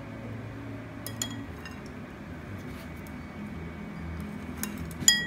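A utensil clinking against a ceramic bowl: a light clink about a second in, then a louder, ringing clink near the end.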